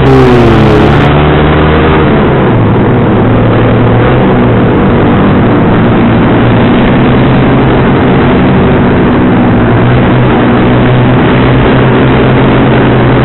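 Sport motorcycle fitted with an aftermarket racing exhaust, heard from its own seat while riding. The engine pitch falls in the first second, climbs again about two seconds in, then holds fairly steady at cruising speed.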